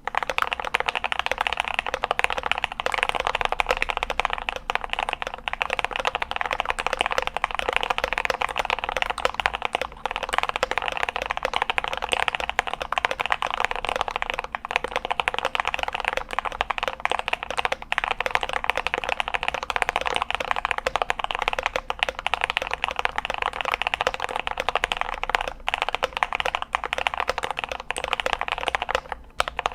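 Fast, continuous typing on a GMMK Pro mechanical keyboard with an aluminum plate, lubed Gateron Red Ink linear switches and PBT keycaps. The keystrokes run together into a dense, even clatter that stops just before the end.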